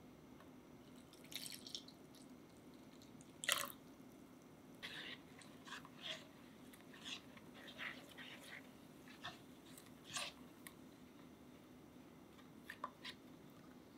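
Milk being poured into a custard mixture and stirred with a silicone spatula in an enamel saucepan: soft wet scrapes and light taps against the pot, the loudest about three and a half seconds in, over a faint steady hum.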